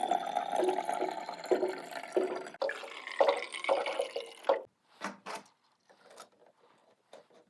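Water being poured into a rabbit's water bottle as it fills, with a faintly rising pitch. It stops sharply about two and a half seconds in, a second shorter pour follows, and then come a few light clicks.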